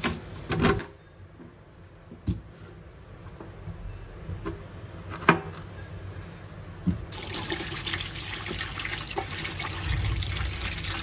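A few sharp knocks as cauliflower is cut on a plastic cutting board, then about seven seconds in a kitchen tap starts running steadily, washing cauliflower florets in a steel bowl in the sink.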